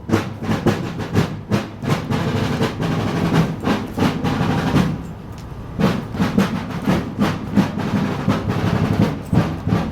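Snare drums beating a rapid marching cadence with rolls, the drum cadence played while a color guard advances the colors. The cadence eases briefly about halfway through.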